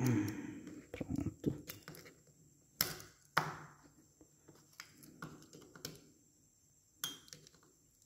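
Scattered metallic clicks and taps of a small hand tool and fingers against a motorcycle balancer gear and its coil damper springs as the springs are worked into place, with two sharper clicks around three seconds in and another about seven seconds in.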